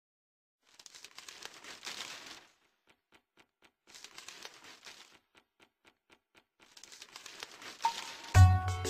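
Two swells of rustling noise with short, even ticks about four a second between them, then a rising swell. Music with a deep bass line and clear notes begins near the end.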